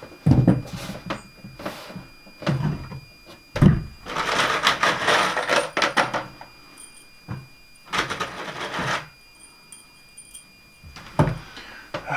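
Scattered knocks and thumps, with two spells of rustling noise about two seconds long, from timber being handled.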